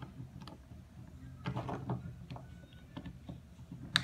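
Faint scattered clicks and scrapes of a screwdriver tip working against the small plastic housing of a pressure washer's trigger switch, prying at its latches to open it, with one sharper click near the end.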